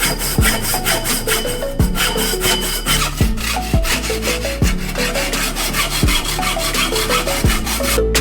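Background music with a steady beat: regular kick-drum thuds, short plucked notes and a fast, scratchy rasping rhythm.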